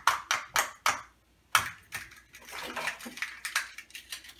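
A fork beating an egg in a small ceramic bowl, clicking sharply against the bowl in quick, irregular strokes with a short pause about a second in.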